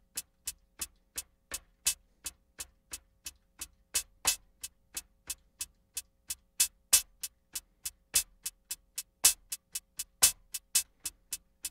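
Akai Rhythm Wolf's analog hi-hat voice played by its sequencer: a steady run of short, bright hits, about three a second, some louder than others. The tune knob is being turned without any audible change to the sound.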